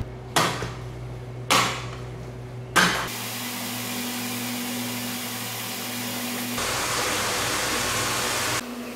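Three sharp knocks about a second apart from a metal hook working a giant bluefin tuna's head. After them comes a steady hiss with a faint low hum, which grows louder about two-thirds of the way in and stops shortly before the end.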